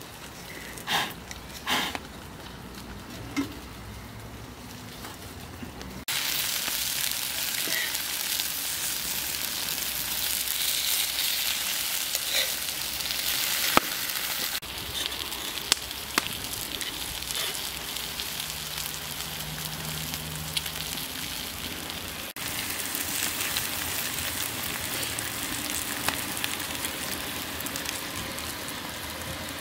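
Food sizzling and frying over a fire: a dense, steady hiss full of small pops and crackles. It is quieter with a few light knocks at first, then starts loud and abruptly about six seconds in, and changes level sharply twice more further on.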